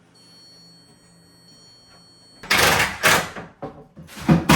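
A faint steady high whine, then two loud scraping or sliding noises about a second and a half apart, in the middle of cabinet fitting work.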